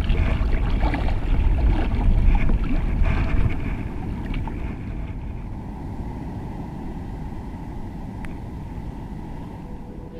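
Wind buffeting the microphone over sloshing sea water, louder for the first three and a half seconds, then settling to a steadier, quieter rush.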